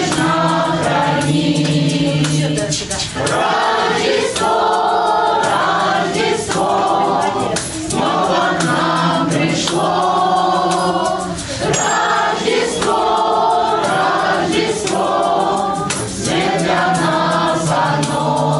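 A choir of children and adults singing together, in phrases with brief breaks about every four seconds.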